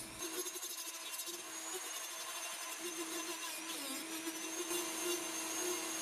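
Dremel 3000 rotary tool running at high speed, its small bit grinding tupelo wood in a steady whine. About four seconds in, the pitch dips briefly as the bit bogs under load, then picks up again.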